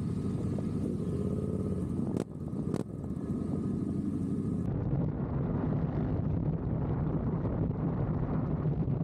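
Motorcycle engines running at a low steady pace, with two sharp clicks about two and three seconds in. From about halfway the sound gets louder as a Yamaha MT-07's parallel-twin engine runs under way, with wind rushing over the microphone.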